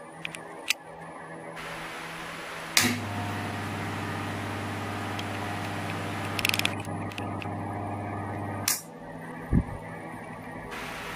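A 1/3 hp continuous-duty fan motor with a drill chuck mounted on its shaft, switched on with a sharp click about three seconds in, running with a steady low hum for about six seconds, and switched off with another click. The hum is quiet for a motor of its size.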